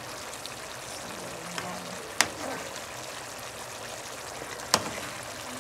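Pork spare ribs simmering in a pan of sauce reduced to a thick, creamy consistency: a steady bubbling sizzle. Two sharp clicks stand out, about two and a half seconds apart.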